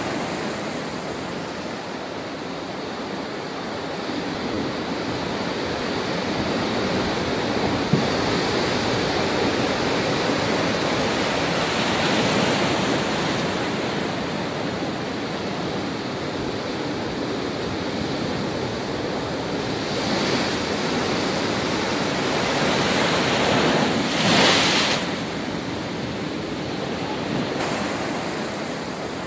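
Heavy storm surf crashing against a seawall, a continuous rush of breaking water and spray with wind. It swells with each big wave, and the loudest surge comes near the end. These are the storm-driven waves of a cyclone.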